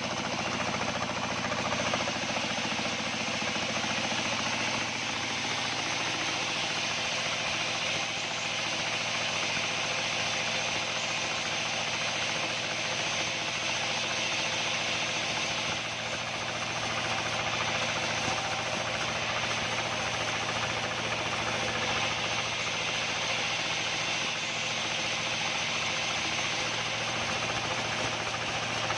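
Locally made sawmill band saw machine running steadily under test, with a constant low hum and a steady hiss.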